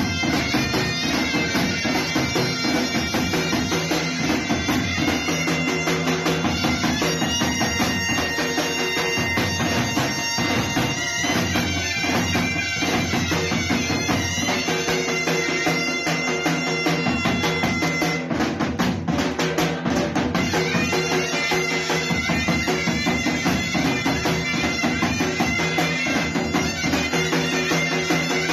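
Two zurnas playing together over a steady beat on a davul, a large double-headed bass drum struck with sticks: a loud, continuous live folk dance tune.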